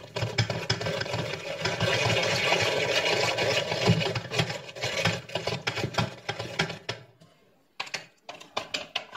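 Hand-cranked food mill being turned, its blade grinding cooked vegetables through the perforated plate with a fast, steady rattle. The cranking stops about seven seconds in, followed by a few separate knocks near the end.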